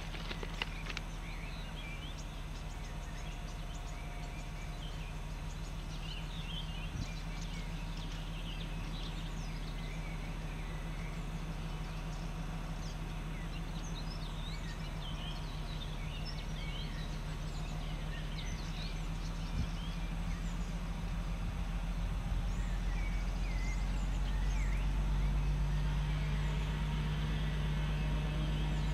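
Distant DB class 232 "Ludmilla" diesel locomotive, a Kolomna V16 two-stroke, running steadily at idle, then louder and slightly higher in pitch about three quarters of the way through as it powers up to pull out. Birds chirp throughout.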